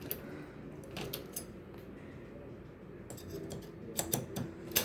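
Scattered sharp metallic clicks and clinks of a butter knife being worked against a door lock. The loudest clicks come near the end.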